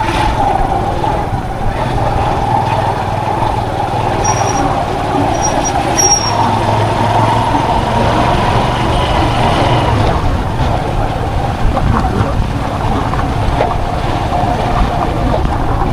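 A road vehicle moving steadily, with a continuous engine note and road rumble close to the microphone. A few brief high squeaks sound about four to six seconds in.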